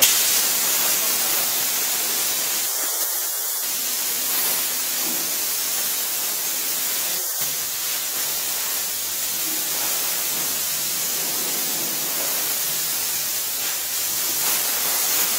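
Steam cleaner gun jetting steam in a steady hiss, strongest in the high end, as it blasts the restroom floor and urinals.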